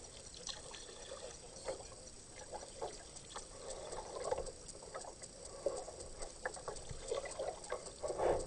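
Kayak paddle strokes in the river: irregular splashes and water trickling off the blade, with the loudest splash near the end.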